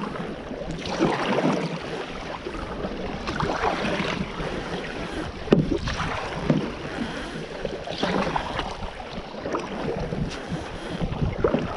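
Double-bladed kayak paddle strokes, the blades dipping and pulling through the water on alternate sides about every one and a half seconds, with water splashing and wind on the microphone. A sharp knock about five and a half seconds in.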